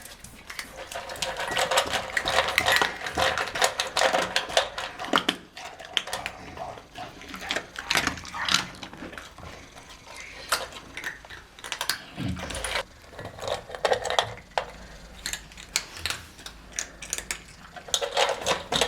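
Irregular clicking and clattering of small hard objects, in quick uneven runs.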